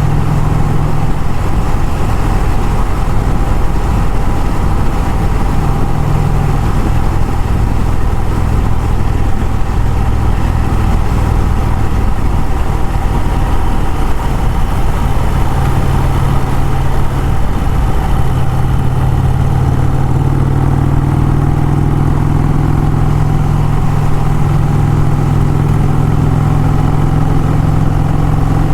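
Motorcycle engine running steadily under way, with road and wind noise. The engine note shifts slightly about two-thirds of the way through.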